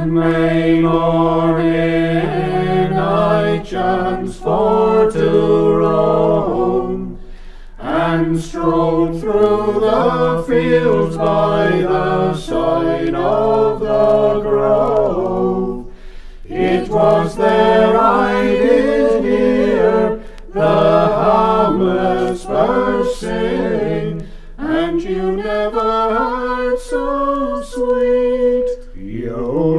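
Unaccompanied harmony singing of a traditional English folk song: several voices together in long phrases, with a short break for breath about every eight seconds. Faint record-surface clicks sound through it.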